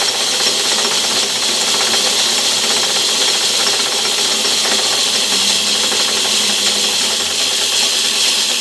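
Myford ML7 lathe running steadily in reverse at speed, its gears and leadscrew driving the carriage back out after a thread-cutting pass.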